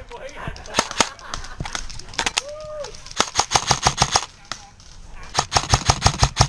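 Airsoft electric rifles firing full-auto bursts of sharp cracks, about eleven shots a second. There are a few single shots first, a short burst about three seconds in, and a longer burst near the end.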